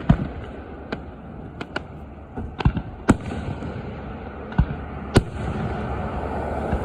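Fireworks going off: a string of sharp bangs at irregular intervals, about ten in all, over a steady low background rumble.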